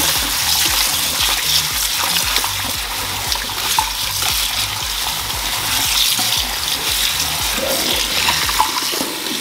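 Tap water running steadily into a glass bowl of raw chicken drumsticks in a stainless steel sink, splashing as plastic-gloved hands rub and turn the chicken to rinse it.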